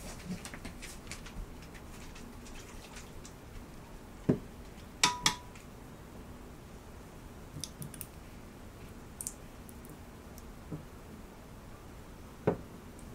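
Kitchen handling sounds as Worcestershire sauce is measured into a cooking pot: small clicks, then a few sharp metal-and-glass clinks about four to five seconds in, one with a short ring, and a single knock near the end as the glass sauce bottle is set down on a wooden table.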